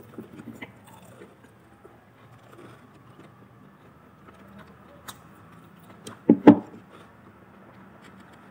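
Quiet sounds of eating fried chicken, with small clicks early on, then two short thumps in quick succession about six seconds in.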